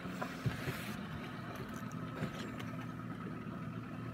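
Fishing boat's outboard motor running steadily at low trolling speed.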